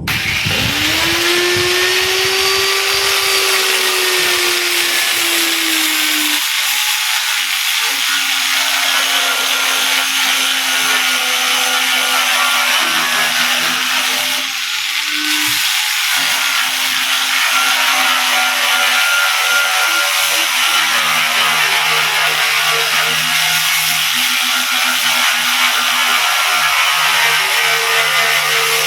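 Grinder spinning up and then grinding the paint off a dented metal body panel, its motor tone dropping and holding lower once the disc bites, over a continuous harsh hiss.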